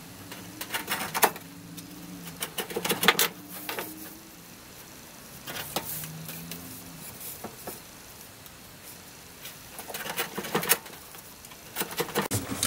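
A leather strap with a metal buckle being worked on a wooden workbench with a hand tool: a few short bursts of scraping and clicking, separated by quieter stretches.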